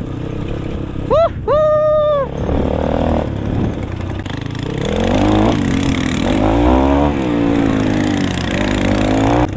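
Motorcycle engine running and being revved, its pitch rising and falling several times in the second half.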